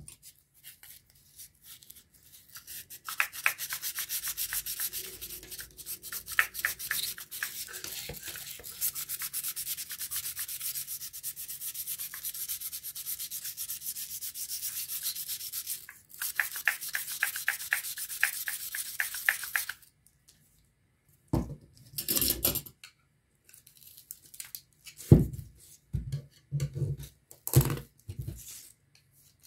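Blue abrasive strip rubbed quickly back and forth along the steel shaft of a small water-pump motor, cleaning rust off it, in a long run of even, hissy strokes that stop about two-thirds of the way in. After that come a few clinks and knocks of metal motor parts being handled.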